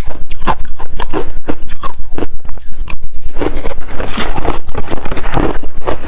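Ice being bitten and chewed, loud and close to the microphone: rapid crunches several times a second that thicken into a continuous crunch about halfway through.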